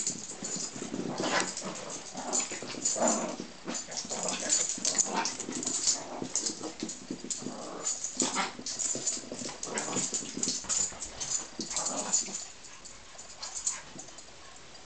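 Two small dogs, a Maltipoo and a Morkie, play-fighting with a rapid, irregular string of short growls and yips, which dies down near the end.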